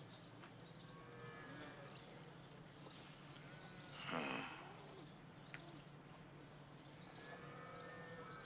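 Quiet outdoor film ambience: faint bird chirps over a low steady hum. About four seconds in there is one short, louder sound.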